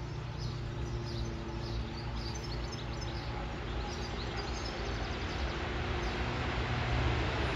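Birds chirping over the low hum and rumble of an approaching train hauled by a MÁV V43 electric locomotive, growing steadily louder as it nears.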